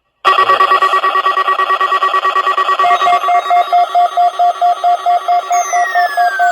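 Several weather alert radios sound their alarms at once, cutting in suddenly: a fast pulsing electronic alarm over steady tones. A second beeping tone joins about three seconds in, and near the end a falling siren-like tone sweeps down. The receivers are alarming for a NOAA Weather Radio required weekly test.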